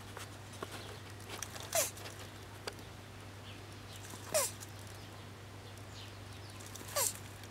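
Male tortoise's mating calls while mounting: three short calls, each falling in pitch, about two and a half seconds apart.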